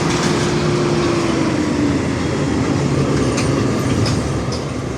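A large engine running steadily, with a whining tone that falls in pitch about one to two seconds in.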